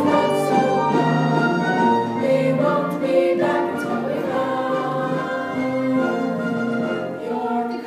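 A stage-musical number: a chorus singing with orchestral accompaniment, in long held notes.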